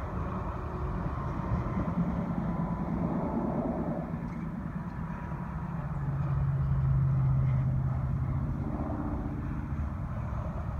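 Low outdoor rumble and wind, with a road vehicle's low engine hum that swells and fades between about six and eight seconds in.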